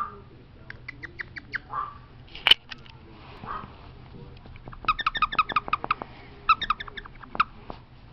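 A squeaker in a small plush dog toy squeezed by hand, giving quick runs of short, high squeaks, several a second, mostly in the second half. A single sharp click comes a little before the runs.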